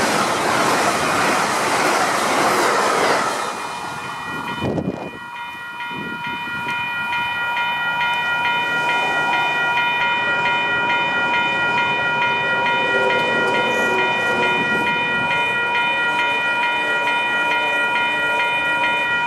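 Amtrak passenger cars roll past on the rails for the first few seconds, with a low thump soon after the train clears. Then the grade crossing's electronic warning bells ring steadily in a fast repeating clang until the end.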